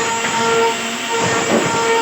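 A machine running with a pitched whine that swells and fades every half second or so, over a rough, steady noise.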